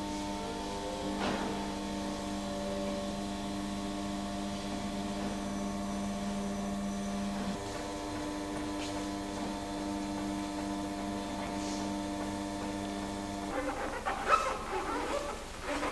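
Electric drive of a large flatbed cylinder printing press humming steadily as the roller travels over the bed, with one lower tone dropping out about halfway through, and stopping about 13 seconds in. Then paper rustling and a light knock as the printed sheet is lifted off the woodblock.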